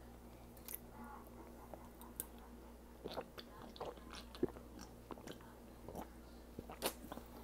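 Faint close-up mouth sounds: chewing and small wet clicks, then, from about three seconds in, gulps and swallows as she drinks from an aluminium drink can.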